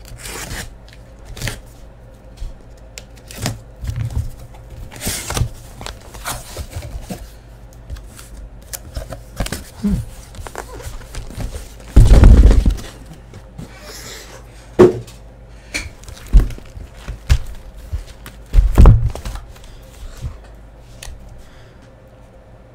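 A cardboard shipping case being cut open and handled: tape being slit and torn, flaps and boxes rustling and knocking. Two heavy thumps, a little after halfway and again about two-thirds through, as the case and the boxes inside are set down.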